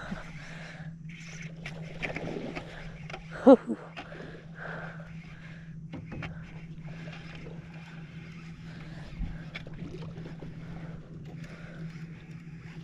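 A baitcasting reel is cranked steadily as a lure is retrieved from a small boat, over a steady low hum. About three and a half seconds in there is one short, loud pitched cry.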